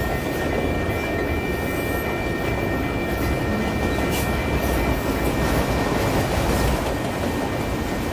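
Union Pacific autorack freight cars rolling past close by: a steady rumble of steel wheels on rail, with a few sharp clicks about two and four seconds in.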